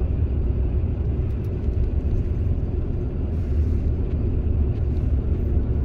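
Steady low engine and road rumble heard inside a moving coach bus.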